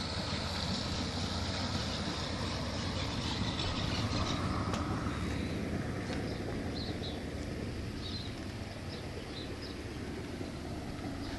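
Steady low background rumble and hiss, with a few faint, short high chirps or clinks partway through.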